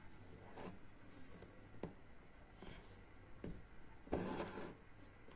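Faint scratchy rasps of embroidery thread being drawn through fabric stretched in a hoop, with a few light ticks of the needle; the strongest rasp comes about four seconds in.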